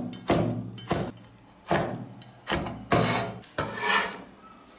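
Cleaver slicing a green pepper on a wooden cutting board, about six separate strokes roughly every 0.7 s. Near the end comes a longer stroke as the blade scrapes the cut pieces together on the board.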